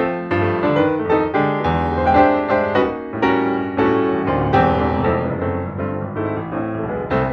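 Piano music playing, a flowing run of notes with frequent fresh attacks.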